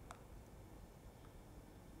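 Near silence: room tone, with one faint click just after the start.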